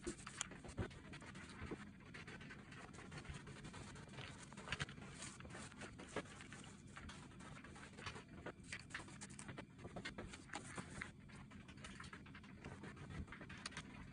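Stencil brush dabbing paint through a stencil onto fabric: faint, irregular soft pats and light scratching strokes.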